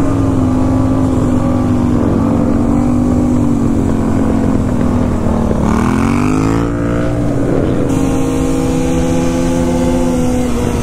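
Motorcycle engine running steadily under way. About six seconds in, the engine note drops and then climbs again.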